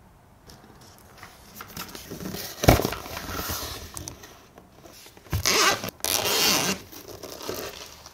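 Scraping and rustling as a cardboard box is handled and opened, with a sharp knock near the middle, then two loud zipper pulls as a fabric-covered hard carry case is unzipped.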